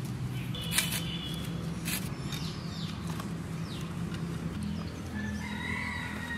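A rooster crowing, one long call near the end, with shorter bird calls and two sharp knocks in the first two seconds.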